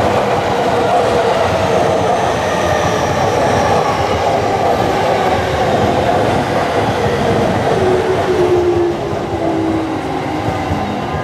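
JR East E231-500 series Yamanote Line electric train running past: a steady rumble of steel wheels on rail, with whining tones that slowly slide down in pitch. The sound drops off about nine seconds in as the last car goes by.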